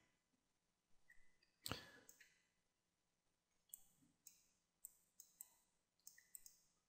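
Faint, sparse clicks of a computer mouse and keyboard: one sharper click near two seconds in, then a quick run of light clicks through the second half.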